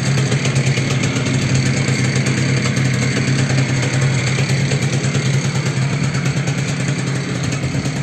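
Yamaha Jog Artistic 3KJ scooter's 50cc two-stroke engine idling steadily, with a knock that the owner takes for a worn piston pin.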